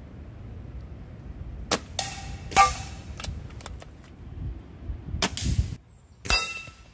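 Air rifle shots at steel knockdown targets: a series of sharp cracks, some followed by a short metallic ring as a pellet strikes a target. The loudest come about two and a half and six seconds in.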